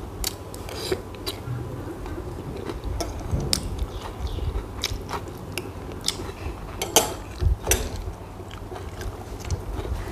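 A person eating close to the microphone: chewing, with sharp clicks about once a second from a metal spoon against a small glass bowl.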